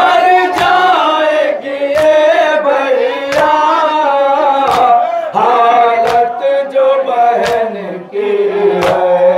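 Men chanting a noha (Shia mourning lament) together, accompanied by matam: open-hand strikes on the chest keeping time, one about every second and a half.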